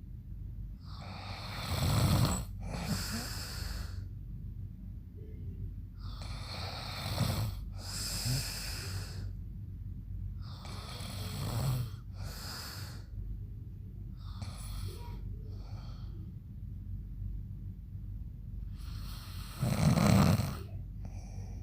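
A man snoring loudly in deep sleep: five snoring breaths about four to five seconds apart, the last one the loudest.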